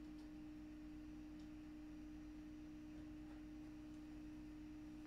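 Faint steady hum of one pitch with a low drone beneath it, with a few very faint clicks.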